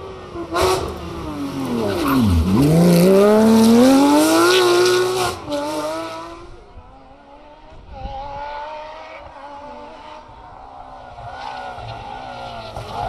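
Porsche 911 rally car's flat-six engine at high revs, dropping sharply as it brakes and changes down about two seconds in, then climbing again as it accelerates past, loudest in the first half. Later a second rally car's engine is heard approaching, fainter, its pitch rising near the end.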